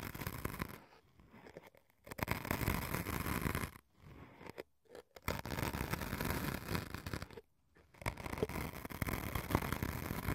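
A thin tapered stick scratching and poking into a white foam cube set against the microphone, making close, rasping scratches. They come in stretches of two to three seconds, with short pauses between them.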